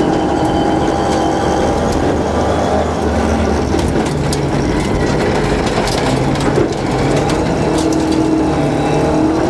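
Rally car engine driven hard, its revs rising and falling with the gear changes, while loose gravel ticks and clatters against the car's underside, thickest in the middle of the stretch.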